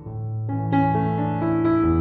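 Background music: soft piano or electric-piano melody with sustained notes changing step by step.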